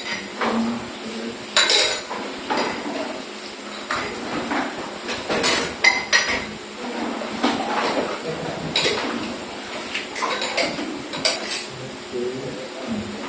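Irregular sharp clinks and knocks of small hard objects, about half a dozen louder ones spread over the stretch with lighter clatter between.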